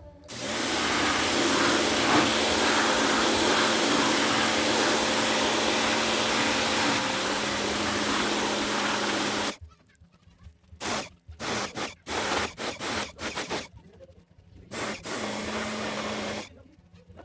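Electric pressure washer spraying water: a steady hiss with the pump motor's hum under it for about nine seconds, then a string of short trigger spurts, then one more steady spray near the end.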